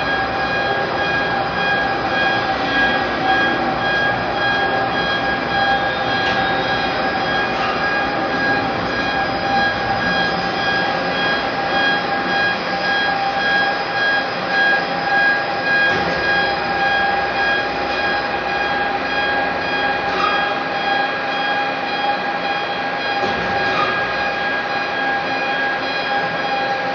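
Overhead crane carrying a load of square steel pipes, running steadily with a constant mechanical drone and a high, even whine.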